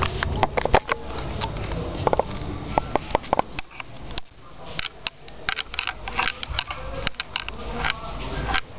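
Handling noise from a handheld camera carried while walking: irregular clicks and knocks, several a second.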